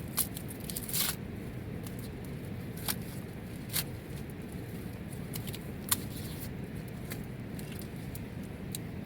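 Steady rain with a handful of sharp taps, like drops or small knocks, the loudest near six seconds.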